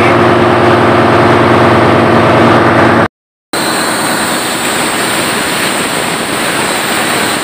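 Steady drone of engine-room machinery running. After a brief cut-out about three seconds in, a steady hiss of compressed air rushing out of the main-engine starting-air bottle's opened drain valve as the bottle is drained.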